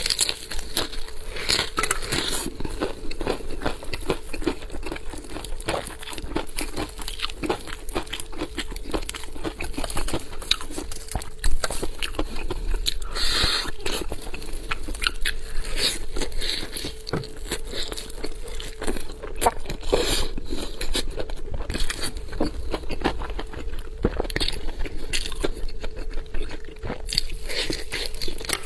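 Close-up eating sounds: someone biting and chewing a large, tender meat leg, with dense irregular clicks, crackling and crinkling throughout.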